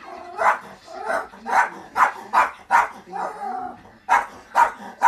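Small terrier barking in a rapid run of sharp barks, about two or three a second, at animals on a television, with a short break and a lower drawn-out sound about three seconds in.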